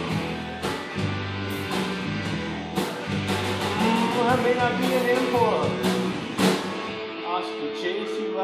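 Live rock band playing a blues shuffle on electric guitars, bass and drums, with a lead line bending in pitch over the top. About seven seconds in, the drums and bass drop out and a chord is left ringing.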